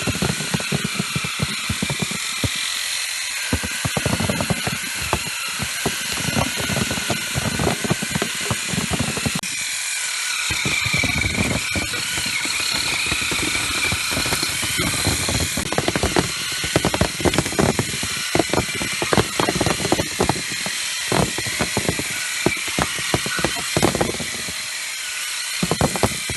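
Electric olive-harvesting combs running with a steady high whine, over dense, irregular clicking and knocking as the combs beat through the branches and olives.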